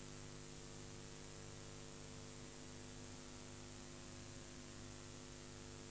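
Faint steady mains hum under tape hiss on the soundtrack of a VHS tape transfer, with nothing else playing.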